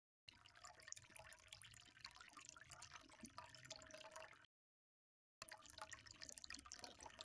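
Very faint scraping and light clicks of a metal spoon working melted chocolate in a glass container and drizzling it, cutting out for about a second in the middle.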